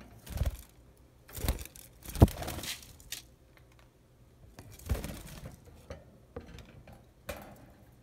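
Rattling and clattering in a budgie cage, in several short bursts with the loudest about two seconds in, as a plastic toy and the cage are knocked about.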